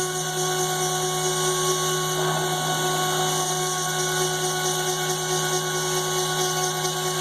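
CNC router running steadily, the spindle giving a constant whine over a high hiss as it cuts, with a brief rougher patch about two seconds in.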